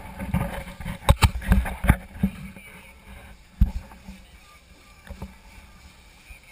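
Thumps and knocks on a fibreglass boat: a quick run of heavy knocks in the first two seconds, then a few single ones, over a low steady background of water and wind.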